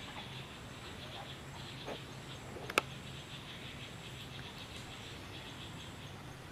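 Steady chirring of insects with a faint low hum underneath, and one sharp click a little under three seconds in.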